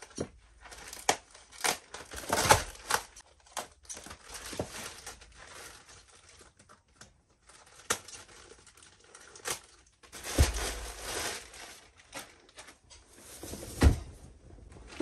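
Plastic wrapping on a roll of fabric crinkling and tearing in irregular bursts as it is cut open and pulled away. Two dull thumps, one about two-thirds through and one near the end, come as the cloth is pulled out and handled.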